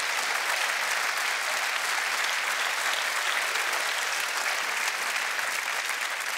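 Studio audience applauding steadily: many hands clapping at once, with no speech over it.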